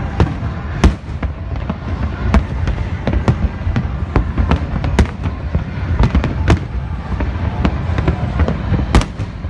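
Fireworks display: a rapid, irregular string of bangs and crackles, several a second, over a continuous low rumble. The loudest blasts come about a second in, midway and near the end.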